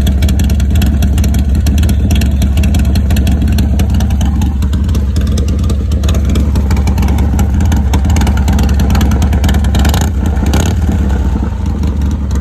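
Harley-Davidson Sportster SuperLow 1200's air-cooled V-twin running steadily through a Thunder Header 2-into-1 exhaust, a loud, deep, even pulsing. It flares briefly twice about ten seconds in, then runs on a little quieter.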